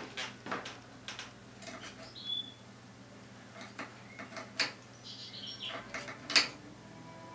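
European goldfinch moving about a wooden cage: scattered sharp clicks and taps of its feet and bill on the perch and bars, the loudest about six seconds in, with a few short chirps.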